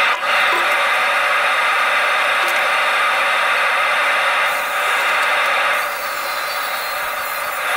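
Forge running with a steady rushing noise, a little quieter over the last couple of seconds.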